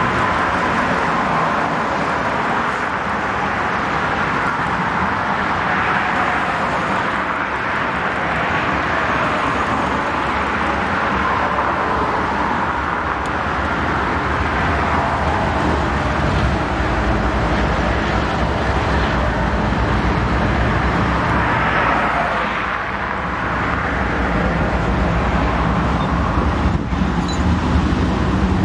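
Freight train passing close by: two CSX diesel locomotives running under power, then a long string of covered hopper cars, with a steady rumble and rush of steel wheels on the rails and a low engine drone underneath.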